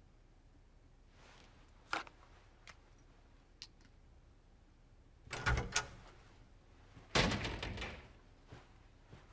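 A door opening and shutting: a few light clicks, then a rattle and thud about five seconds in, then a heavier thud that trails off about seven seconds in.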